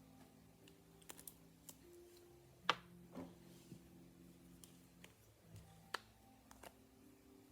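Slime being handled, giving sparse small clicks and pops, the loudest a little under three seconds in, over faint background music with held low notes.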